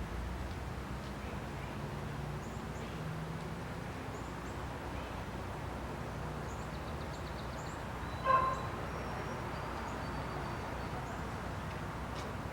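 Outdoor ambience: a steady low rumble with faint, high bird chirps scattered throughout, and a single short, loud animal call about eight seconds in.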